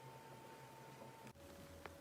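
Near silence: faint room hiss with a faint steady hum that changes abruptly a little past halfway, as at an edit between clips.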